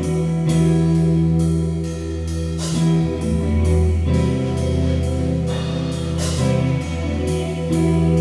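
Live rock band playing a slow song in three-four time: electric guitars hold sustained notes over a drum kit, with cymbal strikes keeping an even beat.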